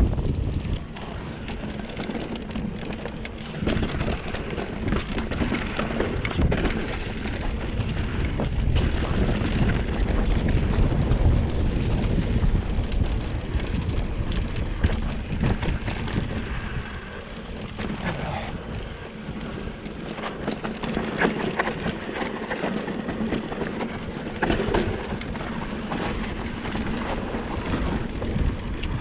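Norco Range VLT electric mountain bike ridden over a rough dirt trail: tyres rolling over dirt and rocks with frequent knocks and rattles from the bike, and wind buffeting the microphone.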